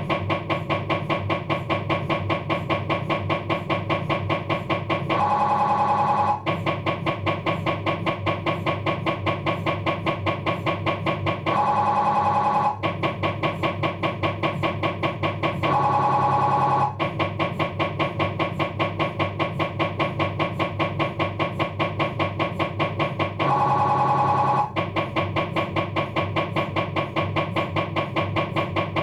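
Philips 1.5-tesla MRI scanner running a diffusion-weighted axial sequence with navigator: a loud, rapid, even train of buzzing gradient-coil pulses. It is broken four times by a steadier, brighter tone about a second long.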